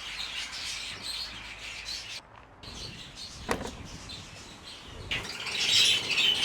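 Many caged birds chirping together, briefly dropping off a little over two seconds in and growing louder near the end, with a single sharp click about halfway through.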